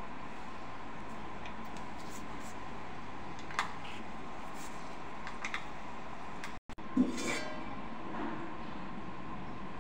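Gas stove burner hissing steadily, with a few light clicks and one sharp clack about seven seconds in.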